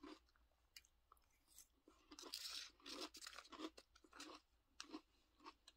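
Faint chewing of crunchy Apple Pie Toast Crunch cereal in milk: a run of short, irregular crunches about every half second.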